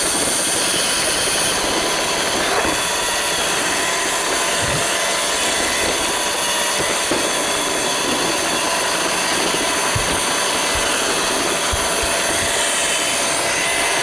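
Roomba robot vacuum running steadily, heard up close from a camera riding on top of it, with a few low thuds here and there.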